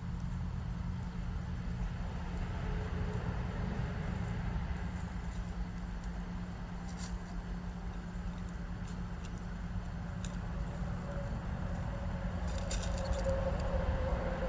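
Steady low background rumble, like distant traffic, with a faint hum that grows louder near the end and a few faint, short high clicks.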